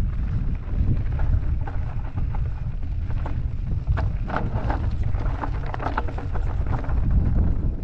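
Wind buffeting the microphone of a helmet-mounted camera on a moving mountain bike, a steady low rumble. Over it come frequent irregular small clicks and rattles from the bike and its tyres running over the stony dirt trail.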